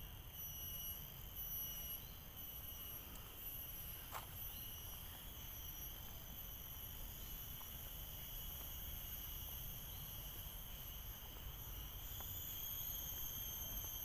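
Insects shrilling in the trees: a steady, high-pitched chorus of several tones, pulsing at first and more even near the end.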